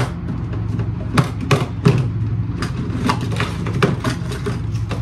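Small toiletry bottles and containers knocking and clattering as a drawer of face products is rummaged through: a quick, irregular run of sharp clicks and knocks over a steady low hum.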